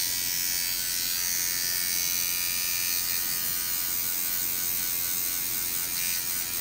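Tattoo machine buzzing steadily as the needle works ink into skin.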